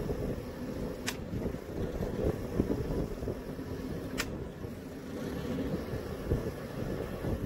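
Sailboat's inboard diesel engine running at low speed, a steady low rumble while manoeuvring into a slip. Two faint ticks sound about a second and about four seconds in.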